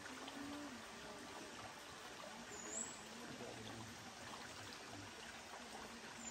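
Stream water flowing with a steady rush.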